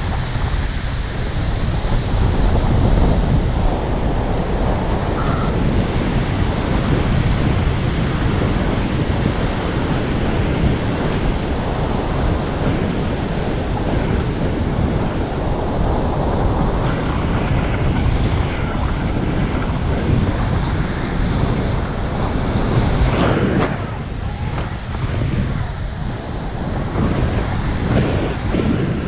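Airflow buffeting the microphone of a camera on a paraglider in flight: a loud, steady rushing wind noise, heaviest in the low end. About three-quarters of the way through it drops a little and turns uneven.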